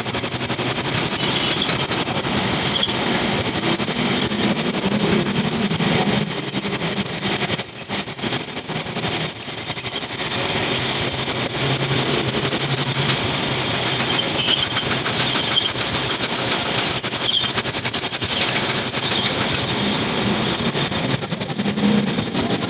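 Metal lathe running while a cutting tool machines a steel part, with a steady high, wavering squeal from the tool on the metal.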